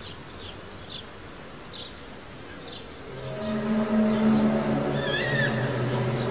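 A low, steady droning hum, a recording of the mysterious 'strange sound' in the sky, fades in about three seconds in over faint chirping. A brief wavering high cry sounds over the drone just past the five-second mark.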